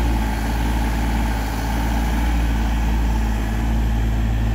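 Sany SY35U mini excavator's diesel engine running steadily as it digs, a continuous even hum.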